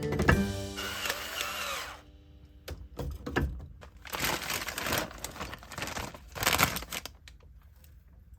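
Background music with clear keyboard-like notes that stops abruptly about two seconds in. It is followed by a few short noisy swells with scattered clicks.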